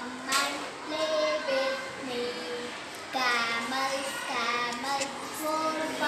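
A young girl singing a children's rhyme alone, in short sung phrases with held notes.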